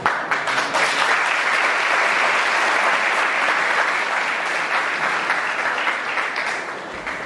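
Audience applauding, starting suddenly and dying down about seven seconds in.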